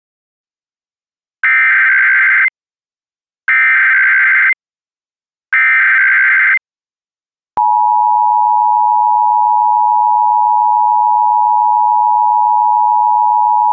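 Emergency Alert System tones: three short bursts of SAME digital header data, each about a second long with about a second between them, carrying the coded Blue Alert message. About seven and a half seconds in, the two-tone EAS attention signal (853 and 960 Hz) starts and holds steady.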